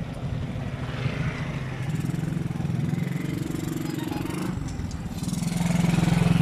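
Small motorcycle engine running as it rides along a road, its note rising and falling with the throttle.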